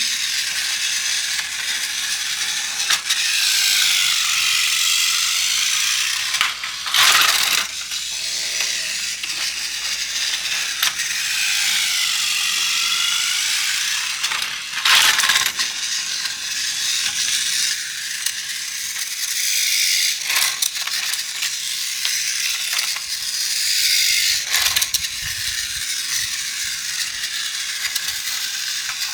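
Battery-powered Plarail toy train running on plastic track: a steady high gear rattle from its small motor that swells and fades in pitch as it travels, with a few sharp plastic clacks.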